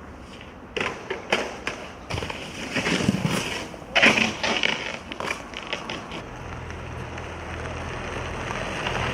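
A snowboard knocking and scraping on a hard surface: several sharp knocks, then two louder scraping bursts about three and four seconds in. A low steady hum sets in about six seconds in.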